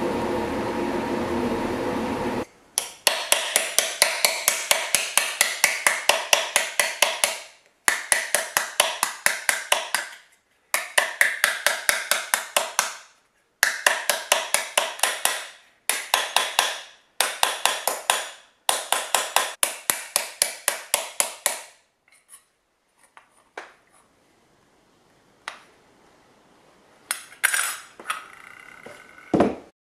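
Ball-peen hammer striking a steel disc on a homemade metal stump dishing anvil, dishing the disc. The blows come in quick runs of short, sharp metallic strikes, about four or five a second, separated by brief pauses. They give way to a few scattered knocks near the end. It opens with a steady rushing noise that stops about two and a half seconds in.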